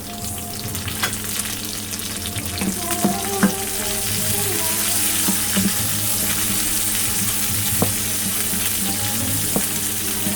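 Food sizzling in hot oil in a frying pan, starting abruptly at the very beginning, with scattered clicks of a utensil stirring in the pan. Faint background music with sustained tones runs underneath.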